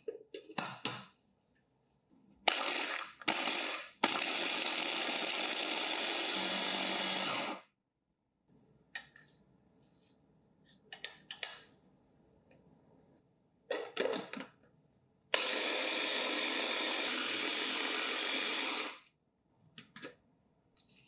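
Small electric food chopper grinding shelled pistachios: a couple of short pulses, then a steady run of about three and a half seconds, and later a second steady run of about four seconds. Between the runs come clicks and knocks of the plastic lid and bowl.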